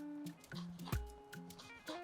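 Background music: plucked guitar notes over a bass line.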